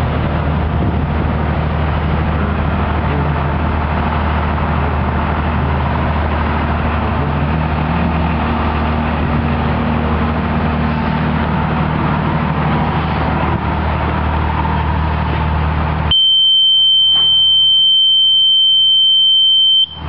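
Engine of a Techniwell high-pressure pump unit running steadily. About sixteen seconds in, a loud single-tone high-pitched alarm buzzer sounds for about four seconds and drowns out the engine.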